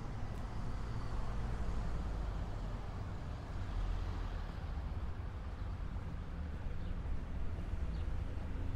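Street traffic: a car driving past on the road, its tyre noise swelling and fading over the first few seconds, over a steady low rumble.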